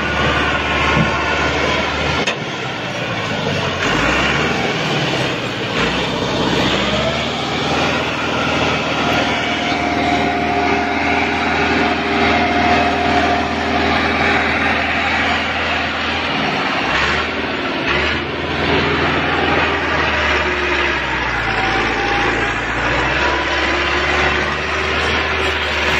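Massey Ferguson 385 tractor's diesel engine running under heavy load as it pulls a loaded trailer. The drone is loud and steady, and its pitch shifts a few times.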